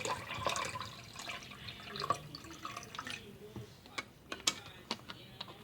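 Water dripping and trickling in a kitchen, with scattered light clicks.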